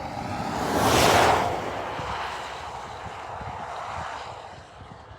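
A vehicle passing close by: a rushing whoosh that swells to a peak about a second in, then slowly fades away.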